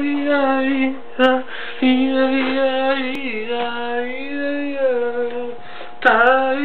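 A single voice singing a melody unaccompanied, with long held notes that bend and slide into each new note, and a couple of sharp clicks.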